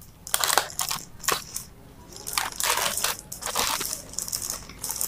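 A plastic courier mailer being torn open by hand: a series of uneven crinkling rustles and rips of the plastic.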